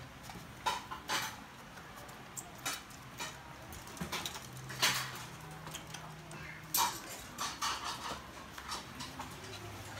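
Scattered light clicks, taps and scratches of toy poodle puppies and their mother shifting about on a plastic slatted crate floor, with sharper clicks about five and seven seconds in.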